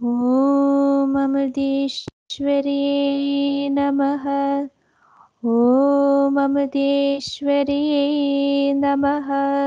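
A young woman singing a devotional prayer song solo, in two long phrases of held notes that slide up into pitch at the start of each phrase. It comes over a video call, and the sound drops out completely in the short pause between the phrases.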